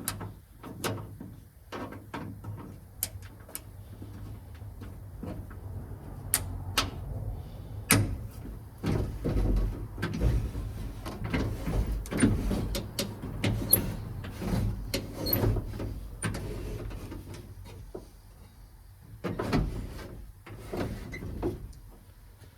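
Irregular clicks, knocks and rattles of hand work on a 1978 Ford F-100 pickup door being taken apart to get at the window regulator, busiest in the middle.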